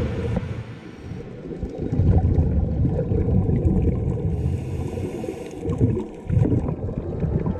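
Muffled underwater rumble and gurgling of water, picked up by a camera's microphone inside its waterproof housing while diving over a reef. The sound rises and falls unevenly, dipping briefly about a second in and again near six seconds.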